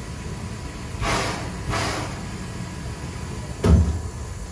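Steam locomotive taking on water at a water tower: two short rushes of noise about a second in, then a single heavy thump near the end, over a steady low rumble.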